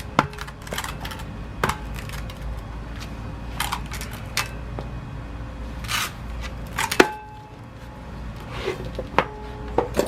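Side-mount scuba tank and its cam-banded tank boot being handled: irregular knocks and clicks, a few of them ringing briefly.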